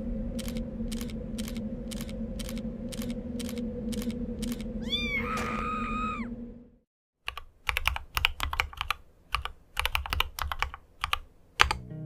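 Keys clacking on a Varmilo VA87M mechanical keyboard in an uneven run of keystrokes, starting after a brief silence halfway through; the sharpest clack comes near the end. Before the silence, a steady hum with even ticks about twice a second, and one cat's meow about five seconds in.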